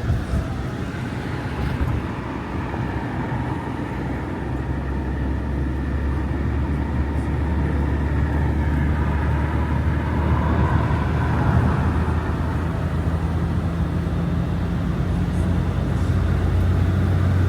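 Interior cabin noise of a 2022 BMW X3 M40i driving: a steady low drone of engine and road noise that grows slightly louder over the stretch.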